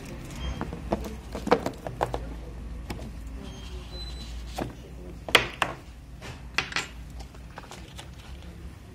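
Clear plastic shrink wrap being peeled off a cardboard smartphone box and the box handled, with scattered crinkles and sharp clicks, loudest about a second and a half in and again about five seconds in.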